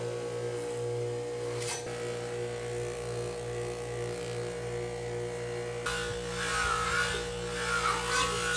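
Ferrari bench grinder's electric motor running with a steady hum, spinning an abrasive disc on a tapered spindle, with a light knock about two seconds in. About six seconds in the disc is worked against a rusty saw blade, adding a louder rasping scrub whose pitch wavers.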